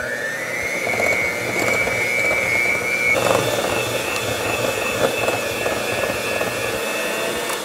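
Electric hand mixer running with its beaters in wet cookie batter in a glass bowl. The motor's whine rises as it spins up at the start, holds steady, then steps up to a higher pitch about three seconds in.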